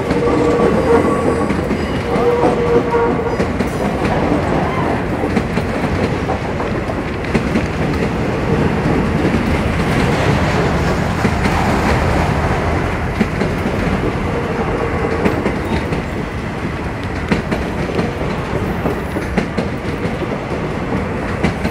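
Freight train of grain hopper cars rolling past at close range: a steady rumble and clatter of steel wheels over the rails. A light wheel squeal rings out in the first few seconds and again about two-thirds of the way through.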